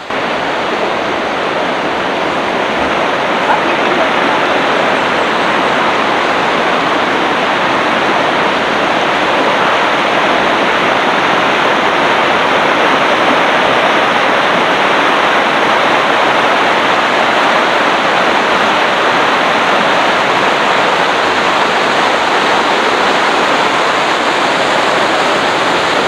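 Fast river water rushing over rocks in white-water rapids: a loud, steady rush of water.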